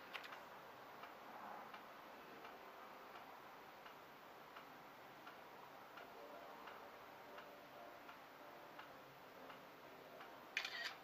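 Near silence: room tone with faint, light ticks now and then, and a brief louder sound just before the end.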